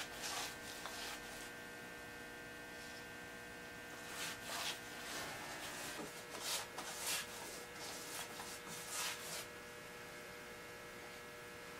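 Steady electrical mains hum, with a few soft swishes and rustles about four, six and nine seconds in as a paintbrush works varnish onto the wooden table legs.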